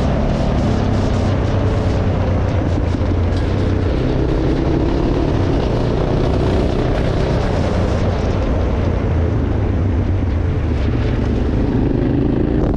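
Off-road motorcycle engine running steadily while riding, under a constant rushing noise.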